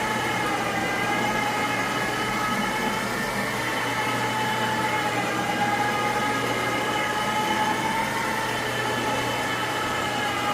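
Carpet-cleaning extraction machine running steadily, a continuous high whine whose pitch wavers slightly.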